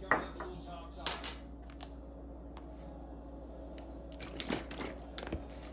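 Scattered light clicks and clinks of small hard objects being handled, over a steady low hum.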